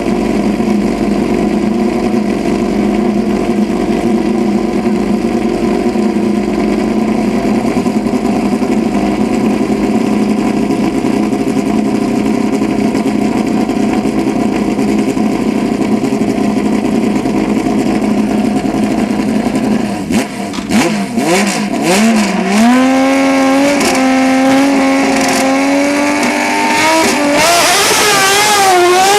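Race car engine at a hillclimb: a steady high engine note with many harmonics, then about twenty seconds in, a car's revs rise and fall in steps through gear changes, getting louder toward the end.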